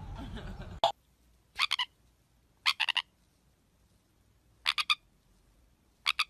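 A small conure parrot, lying on its back while its belly is rubbed, gives four short bursts of three or four quick chirps each, a second or two apart.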